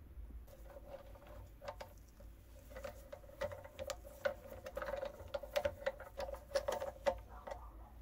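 The rusty crank handle and nut of a 1920s coffee grinder being worked on its spindle: a thin, steady metal squeak with a quick run of small clicks and scrapes, stopping about seven seconds in.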